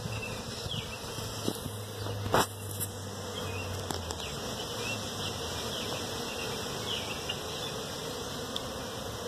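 Honeybees buzzing at the entrance of a very active hive, a steady drone of many bees flying in and out. A single sharp click sounds about two and a half seconds in.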